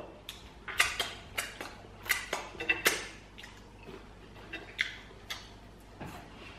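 Crisp fried chicken being picked apart by hand and eaten: irregular sharp crackles and clicks, thickest in the first three seconds.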